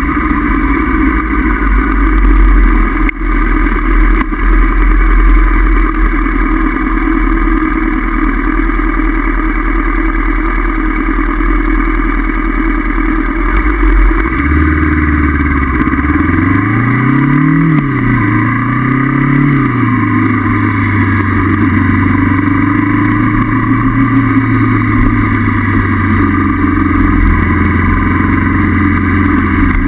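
Honda CB500F parallel-twin engine heard on a ride, under a heavy low wind rumble on the microphone for the first half. About halfway through the engine note comes forward, climbs, drops at a gear change, climbs again, then holds steady.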